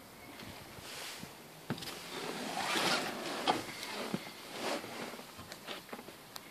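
Someone climbing into a car's driver's seat: clothing and seat upholstery rustling, with several light clicks and knocks. No engine is running.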